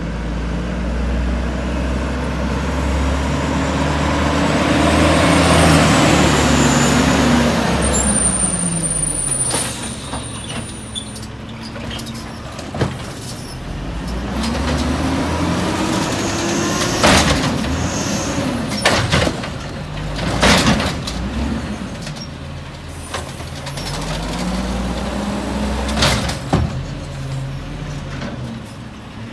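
Garbage truck's Cummins L10G natural-gas engine revving hard three times, each rev rising and falling, while the rail-arm automated side loader works the carts. Sharp clanks and knocks of the arm and cart come through the middle and later part, with a brief hiss about 8 seconds in.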